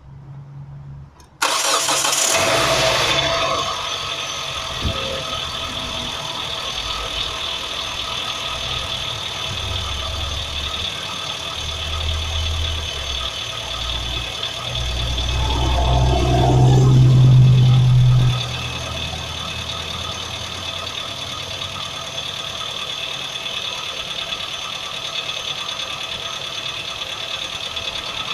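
2006 Hyundai Tucson engine starting from cold about a second and a half in, then idling with extraneous noises from the engine that the owner hears only when it is cold. The running gets louder for a few seconds about two-thirds of the way through, then drops back suddenly.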